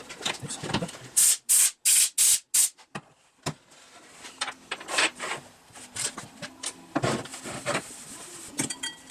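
Five short, loud hissing spray bursts in quick succession, about three a second, from a pressurized nozzle. They are followed by small clicks and knocks of parts being handled.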